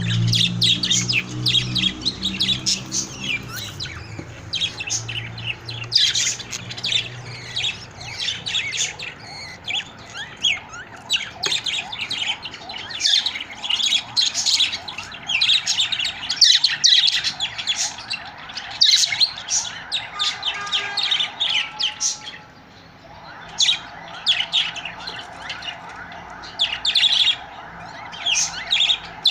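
A flock of budgerigars chirping and chattering without pause, a dense stream of quick, high chirps and squawks. A low hum sits under the first several seconds, and there is a short lull about three-quarters of the way through.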